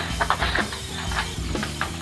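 Background music with a steady bass beat, and a few short clicks in the first second.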